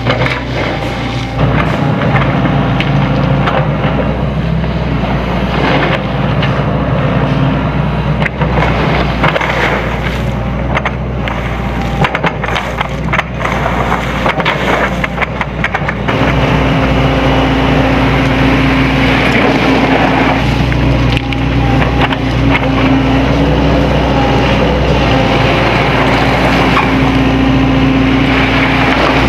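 Diesel engine of a Sany SY75C excavator running steadily under load while its bucket scrapes and knocks through gravel. About halfway through, the clatter eases and the engine settles into a steadier, stronger drone.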